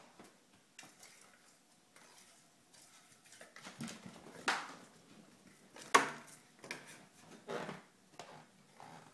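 Kittens playing with a small toy on a hardwood floor: scattered knocks, scuffs and clatters, the loudest two about four and a half and six seconds in.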